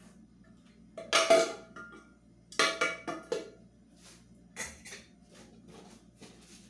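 Cookware clinking as it is handled: a glass pot lid and a ceramic-coated aluminium pot knock together, two ringing clinks, about a second in and near three seconds in, then a lighter knock.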